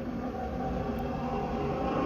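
Steady low mechanical rumble of a heavy vehicle, slowly growing louder.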